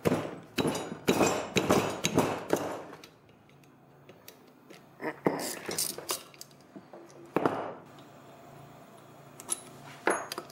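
Metal hand tools clinking against a hydroboost housing as its bolts are worked loose with a socket wrench: a quick cluster of sharp clinks in the first few seconds, then a few scattered ones.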